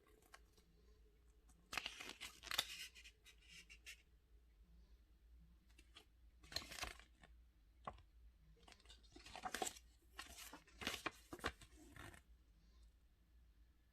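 Product packaging being handled and torn open: several short bursts of tearing and crinkling of paper or plastic, with quiet gaps between them.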